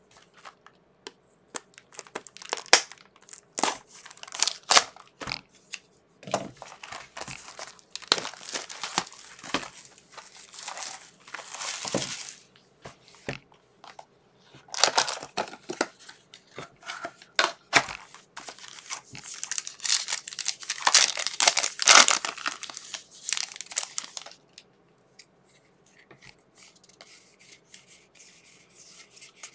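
Plastic wrapping and pack wrappers of a trading-card box being torn open and crumpled, in repeated crackling bursts. Near the end it settles into faint scattered ticks of handling.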